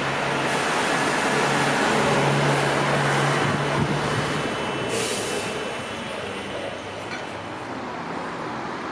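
A city bus pulling away across a bus station forecourt, its engine running with a steady low hum that is loudest for a couple of seconds, over general traffic noise. About five seconds in comes a short hiss of air.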